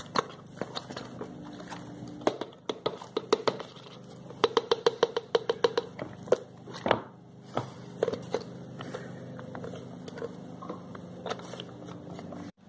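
Irregular sharp clicks and sputtering taps as white glue is squeezed from a bottle into a bowl, with a quick run of clicks about halfway through.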